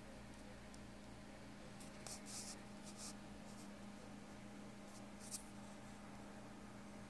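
Faint steady hum and hiss of a quiet room, with a few brief soft scratching sounds about two to three seconds in and one short sharper one a little past five seconds.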